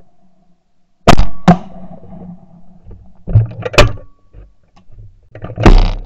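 12-bore over-and-under shotguns firing at clays: loud shots about a second in, just before four seconds and near the end, with a few quieter reports between.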